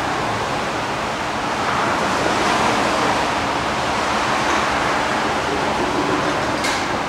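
Metro-station escalator running as it carries the rider upward: a steady, even noise with no clear rhythm, and one sharp click near the end.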